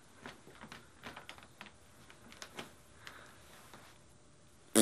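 Faint, irregular soft taps and small creaks of footsteps in socks on a wooden floor, with a loud vocal sound bursting in at the very end.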